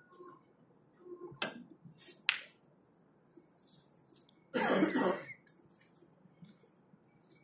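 A person coughs once, a short loud burst about two-thirds of the way through, after two sharp clicks about a second apart.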